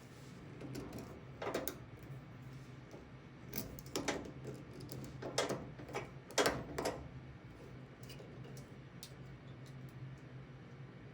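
Improvised metal picking tools scraping and clicking in the keyway of a vintage Steelcase desk drawer lock: a few irregular clicks and scrapes, the loudest about a third and two thirds of the way in, over a steady low hum.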